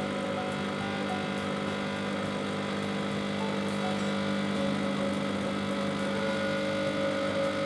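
Expobar Leva 1 espresso machine's pump running steadily with a constant hum, pushing water against a blind filter during a backflush.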